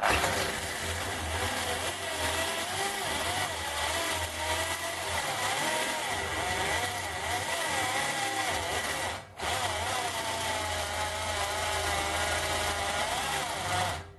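Electric drill running with a large HSS step drill bit cutting into sheet metal, a steady motor whine under a wavering squeal from the bit, stopping briefly about nine seconds in and then starting again. The drill's gearbox is worn and noisy.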